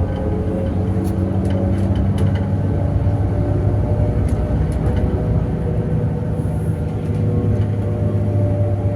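Steady engine drone and road noise heard from inside a moving bus, with a low hum holding an even pitch.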